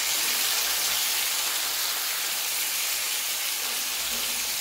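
Squid rings coated in spice masala shallow-frying in oil in a pan, sizzling steadily.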